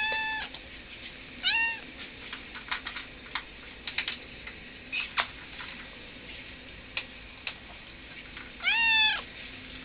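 Turkish Van cat meowing three times: short meows at the start and about a second and a half in, then a longer, louder meow near the end. Scattered light clicks fall between the calls.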